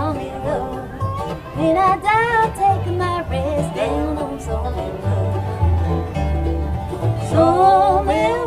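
Acoustic bluegrass band playing an instrumental break: a lead instrument slides and wavers between notes over banjo and guitar picking, with double bass notes changing about twice a second.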